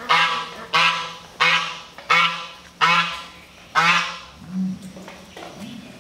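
Domestic ducks quacking loudly, a series of about six harsh calls roughly two-thirds of a second apart, then a few fainter calls after about four seconds.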